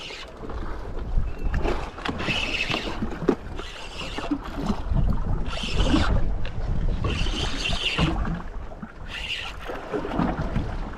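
Wind buffeting the microphone over water sloshing against a small boat, with about six short hissing splashes a second or two apart.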